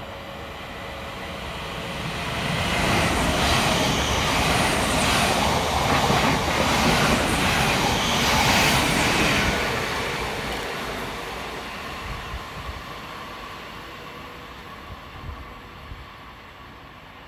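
Class 700 electric multiple unit passing through the station at speed without stopping: it grows louder over the first few seconds, is loudest for several seconds, then fades away.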